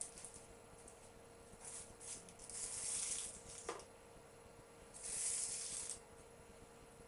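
Handling sounds as roasted vegetables are picked off a baking tray and laid on puff pastry: two brief scraping rustles, about two and a half seconds in and again about five seconds in, with a short squeak between them, over a faint steady hum.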